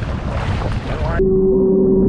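Wind and water rushing past a fishing boat running offshore, cut off abruptly about a second in by muffled underwater-camera sound with a steady low hum.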